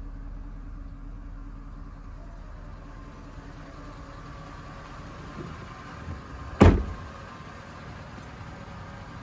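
A 2011 GMC Sierra pickup's door shut once with a solid slam about two-thirds of the way in, after a couple of small knocks, over a steady low hum.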